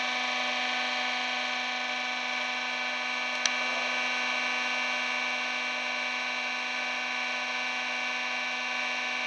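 Hydraulic notching machine's pump motor running with a steady hum, idling while no cut is made. A single light click comes about three and a half seconds in.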